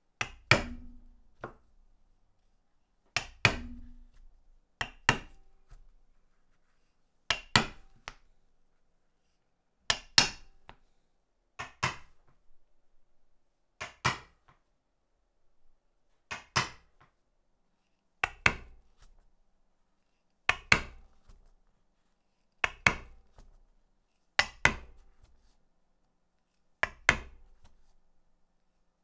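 Mallet striking a leatherworking tool, two quick blows at a time, repeated about every two seconds.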